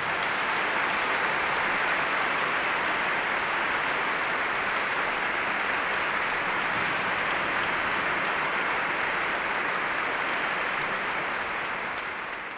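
Audience applauding steadily after sung music ends, fading away at the very end.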